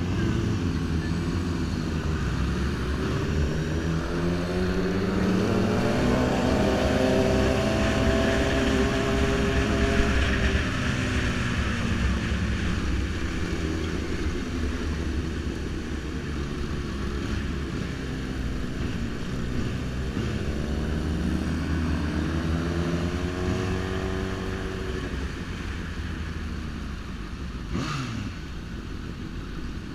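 Sport motorcycle engines accelerating through the revs, pitch climbing and then falling twice, under heavy wind rush on the microphone.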